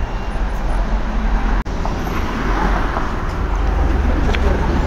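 Steady city street traffic noise with a low rumble, briefly cutting out about a second and a half in.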